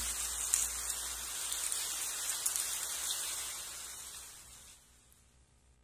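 Steady rain patter, a hiss with scattered drops, fading out to near silence near the end.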